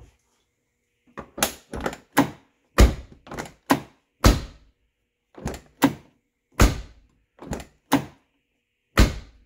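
Rear door of a 1990–1997 Lincoln Town Car being opened and shut repeatedly: a series of sharp clicks and thuds as the latch meets the freshly adjusted door striker bolt and its new bushing, testing whether the door now latches properly.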